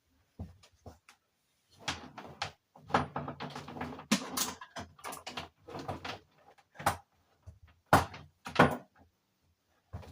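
Irregular knocks, bumps and clatters of objects being handled, about a dozen over several seconds, the loudest a little before and after the eight-second mark.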